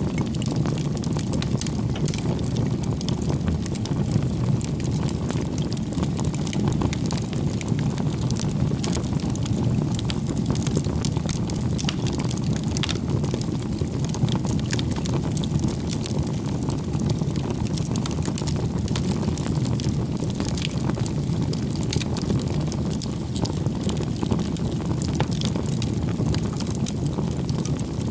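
Wood campfire burning: a steady low rush of flames with frequent small crackles and pops from the burning wood.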